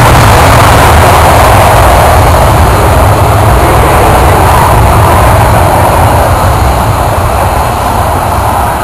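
McDonnell Douglas MD-80-series airliner's rear-mounted jet engines at takeoff power, a very loud steady roar that eases slightly near the end as the plane rolls away down the runway.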